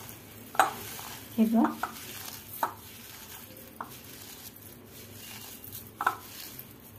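Hands crushing and rubbing rose petals with sugar granules in a bowl: a steady soft crackling rustle, with a few short sharp clicks against the bowl.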